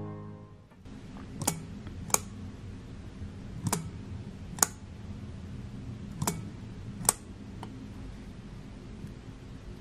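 Bencini Koroll 24 S's single-speed shutter being worked and fired at 1/50 s: three pairs of sharp clicks, the two clicks of each pair a little under a second apart, then two faint ticks.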